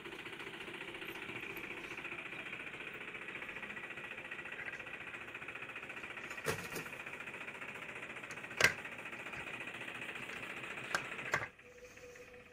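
Small electric toy motor and its gears running with a steady rattling buzz, which cuts off suddenly about a second before the end. A few sharp knocks sound over it, the loudest about two-thirds of the way through.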